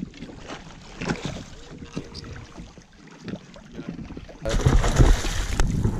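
Choppy sea water sloshing against a kayak hull, with scattered light knocks. About four and a half seconds in it gives way to loud wind buffeting the microphone.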